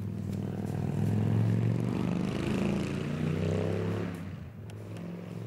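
Engine hum of a passing motor vehicle, growing louder about a second in and fading away after about four seconds.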